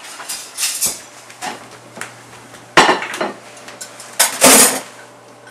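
Dishes, pots and cutlery clattering in a kitchen: a run of separate clanks and knocks, the loudest about three seconds in and again near four and a half seconds.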